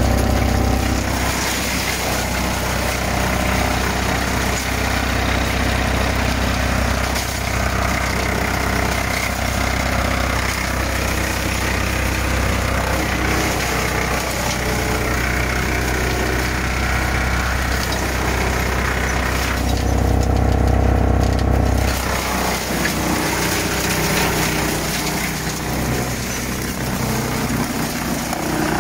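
Farmi Profi CH27 wood chipper running off its FiatAgri 115-90 tractor, a steady loud machine drone while branches go through the feed rollers. The low rumble swells for a couple of seconds about twenty seconds in.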